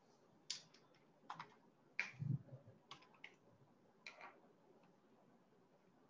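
Faint scattered clicking of a computer keyboard and mouse, seven or so sharp clicks over about four seconds, with a soft low thump just after two seconds in.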